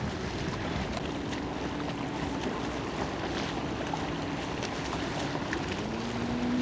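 Boat under way on open water: a steady rush of wind and water noise, with an engine note that rises in pitch near the end.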